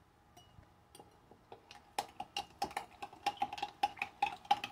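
Metal spoon stirring powdered creamer into warm coffee in a glass mason jar, clinking against the glass about five times a second from about two seconds in, each clink ringing with the same tone. Before that, only a few faint taps.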